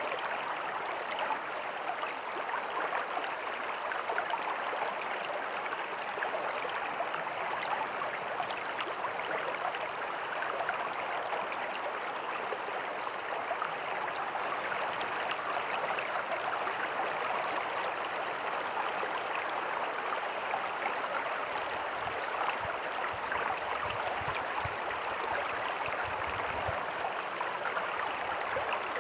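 Small creek with a little waterfall running over rocks: a steady, even rush of flowing and cascading water.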